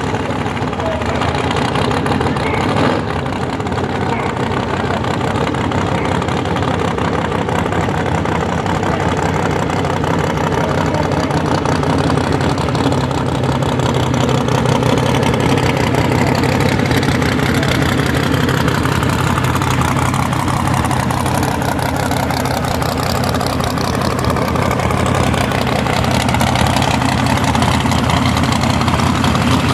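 ProCharger-supercharged Chevrolet S10 drag truck's engine idling steadily, with a higher whine that dips and then rises again in pitch midway.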